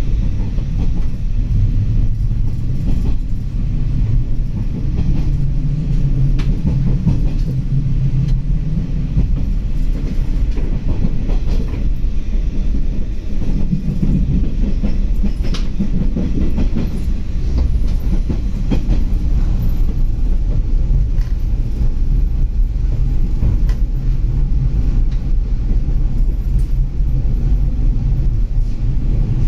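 Running noise of a diesel local train heard from inside the carriage: a steady low rumble with occasional faint clicks of wheels passing over rail joints.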